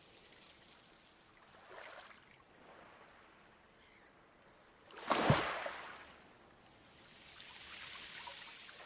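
Light waves washing onto a pebble beach in soft swells that rise and fade. One wave breaks louder and sharper about five seconds in.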